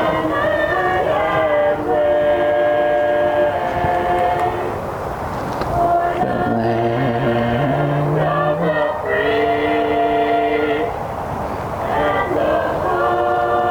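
Singing carried over a stadium public-address system: long held notes, several pitches sounding together, with short breaks twice.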